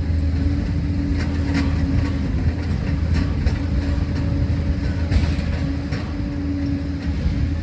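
Liebherr 746 crawler dozer working: a steady diesel engine drone with its tracks clanking at irregular intervals.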